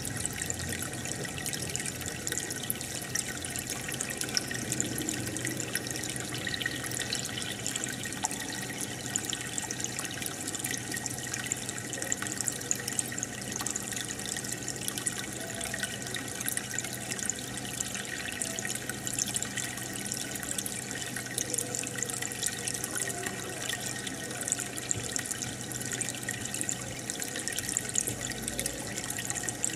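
Aquarium water bubbling and trickling steadily, with many small pops and drips from air bubbles and filter flow breaking the surface, and a low steady hum underneath.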